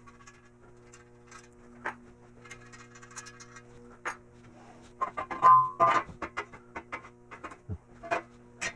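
Background guitar music over a steady low hum, with scattered knocks and clinks of steel parts being handled. The loudest clatter comes about five to six seconds in.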